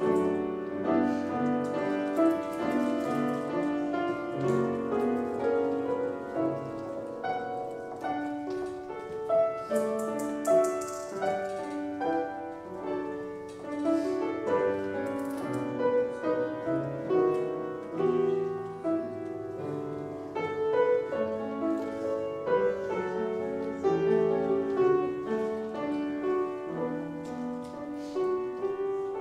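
Piano music: a keyboard piece played in chords, with notes changing continuously.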